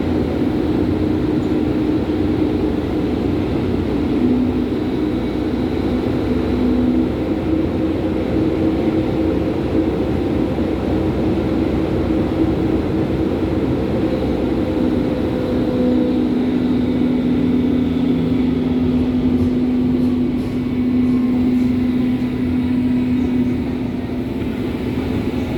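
Berlin U-Bahn type H01 underground train running: steady rumble of wheels on rail with humming tones that drop to a lower pitch about two-thirds of the way through.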